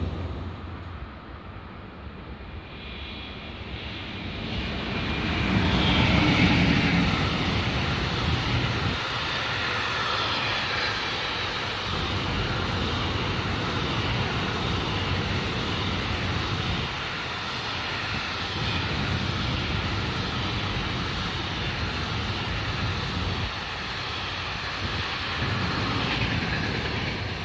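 A train passing: steady rolling noise of wheels on the rails that builds over the first few seconds, holds for about twenty seconds, and begins to fade near the end.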